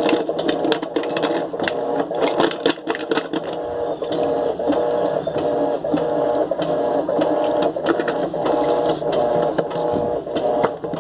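Washing machine motor humming steadily while plastic clicks and knocks come irregularly throughout, as a broken plastic part is pushed at and fails to seat in the machine.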